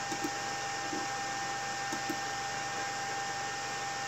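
Steady whir and hiss of a running desktop PC's cooling fans, with a thin steady whine over it. Faint mouse double-clicks come near the start and again about two seconds in.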